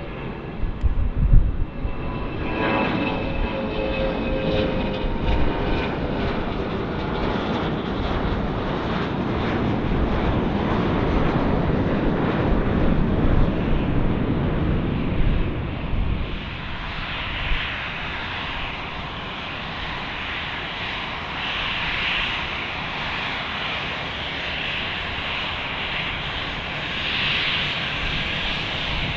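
Turbofan engines of a climbing Boeing 717 rumbling, with a whine that slides down in pitch as the jet passes and climbs away. About halfway through, the sound changes to a lighter, higher jet whine that swells and fades, from an Airbus A320-family airliner on the ground.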